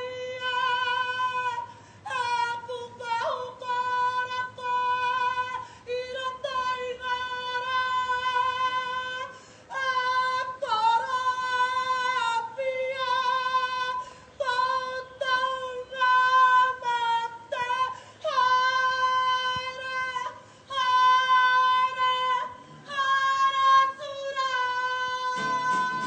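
A high female singing voice holding a slow melody in long sustained notes of a second or two each, with short breaks between phrases.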